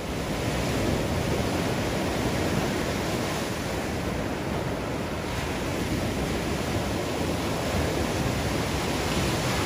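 Ocean surf breaking and washing up a sandy beach: a steady, even rush of water noise.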